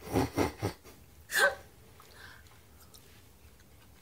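A few short breathy laughs, then one louder breathy laugh with a falling pitch about a second and a half in. After that comes faint chewing of a mouthful of soft candy.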